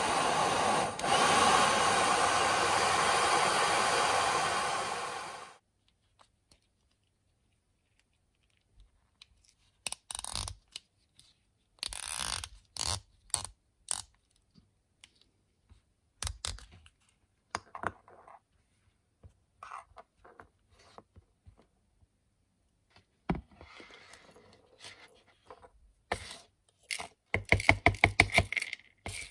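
A hair dryer runs steadily, blowing hot air through a nozzle onto a vintage fountain pen to soften the stuck section, and cuts off about five seconds in. Scattered small clicks and knocks follow as the pen parts are handled and unscrewed. Near the end comes a quick run of strokes, about six a second, as the hardened old ink sac is worked out of the barrel.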